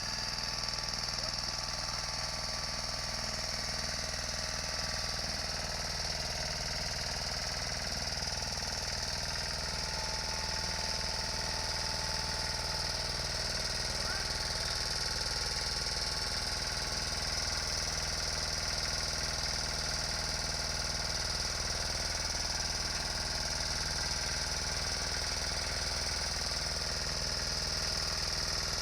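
Engine of an old Agria walking tractor running steadily at a constant pace while ploughing, with a rapid, jackhammer-like chatter.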